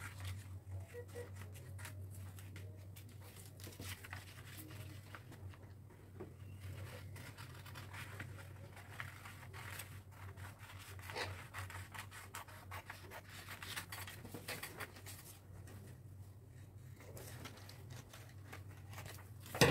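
Scissors snipping through paper pattern sheets in many short, irregular cuts, with the paper rustling as it is handled. A steady low hum runs underneath.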